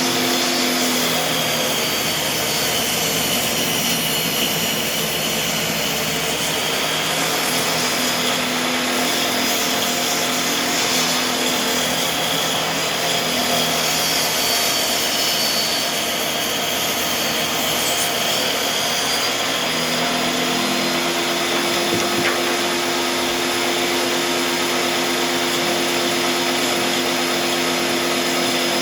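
Electric power saw running steadily through the whole stretch, cutting wooden frame boards, with an even motor hum under the blade noise.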